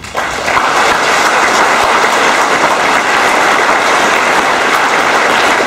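An assembly audience in a school auditorium applauding: many hands clapping, breaking out right at the start and holding steady and loud.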